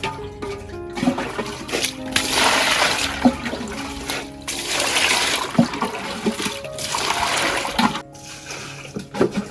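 Water pouring and splashing in three surges of about a second each, over background music.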